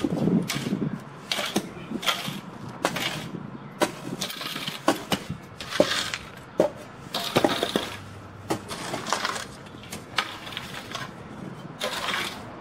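Shovel digging in dirt and gravel: repeated scrapes with sharp clinks and knocks, one every second or so.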